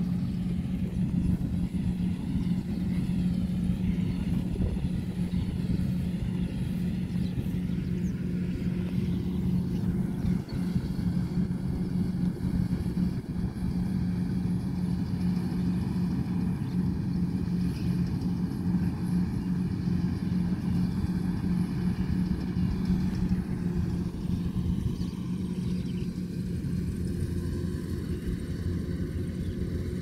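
Tracked rice combine harvester running steadily as it harvests, its engine a constant, unchanging drone.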